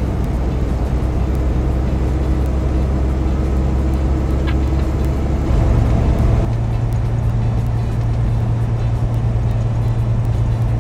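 Semi-truck diesel engine droning steadily at highway speed inside the cab, over tyre and road noise. The drone shifts to a higher pitch about six seconds in.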